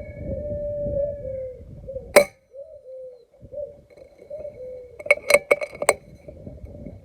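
An air rifle shot: one sharp, loud crack a couple of seconds in, followed about three seconds later by a quick run of about five metallic clicks as the rifle is cycled for the next pellet. Wind rumbles on the microphone until the shot.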